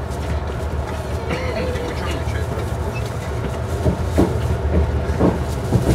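Passenger train running on the rails, heard from inside the carriage: a steady low rumble, with a few sharp knocks from about four seconds in.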